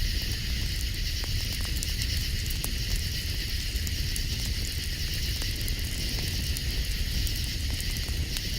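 Campfire crackling with scattered sharp pops over a steady chorus of night insects, with a low steady rumble underneath.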